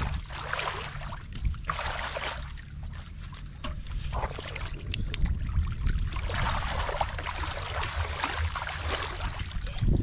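Hands sloshing and splashing through shallow muddy water, groping in the mud for fish, in uneven bursts with a few small clicks. Wind rumbles on the microphone underneath.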